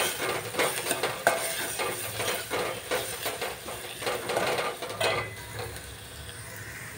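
Metal spoon stirring and scraping chopped tomato and onion masala around a hot metal pot, a quick run of scrapes over a light sizzle of the frying. The stirring stops about five seconds in, leaving the faint sizzle.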